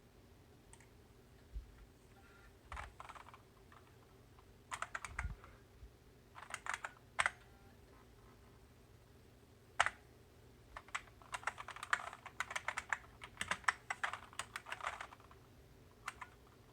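Computer keyboard being typed on in short bursts of keystrokes, then a longer run of fast typing in the second half.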